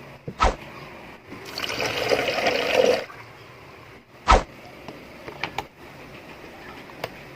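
Water poured into an electric kettle for about a second and a half, getting louder as it fills, then stopping. Sharp knocks come just before and about a second after the pour.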